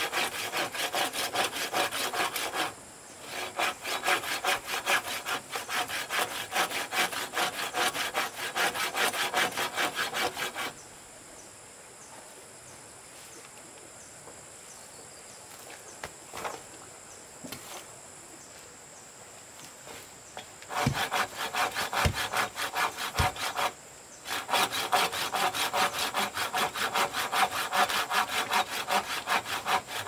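A saw cutting bamboo in quick, even strokes. It stops for about ten seconds in the middle, where a few low knocks sound, then starts sawing again.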